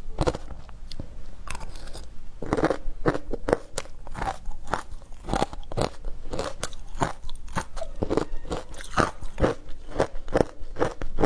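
A person chewing a mouthful of matcha-covered shaved ice: a quick, uneven run of sharp crunches as the ice breaks between the teeth.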